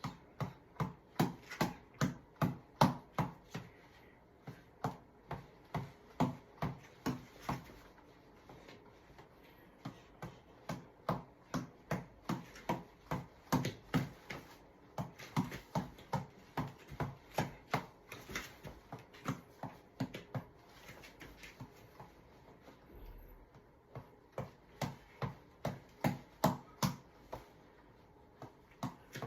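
Tap ball being punched over and over, each hit a sharp slap at about two a second, in runs of several seconds broken by short pauses.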